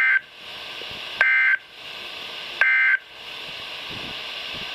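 Emergency Alert System end-of-message signal on weather radio: three short, loud bursts of two-tone SAME digital data, a little over a second apart, marking the end of the warning. Steady radio static hisses between the bursts.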